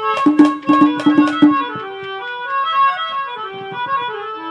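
Harmonium playing a melodic interlude between sung lines, with sharp hand-drum strokes over the first couple of seconds.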